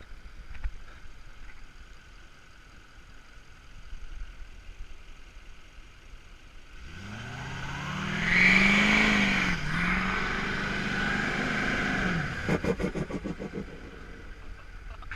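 2015 Duramax 6.6-litre V8 turbodiesel revved hard after a quiet start, its pitch climbing about seven seconds in and holding high for some five seconds. When the throttle is let off, the turbo gives a rapid fluttering chatter (compressor surge) as the revs fall.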